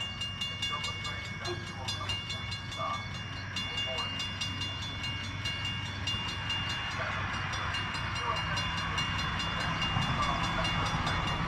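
Grade-crossing warning bell ringing in steady repeated strokes as a Metra commuter train approaches, its low rumble growing from about eight seconds in.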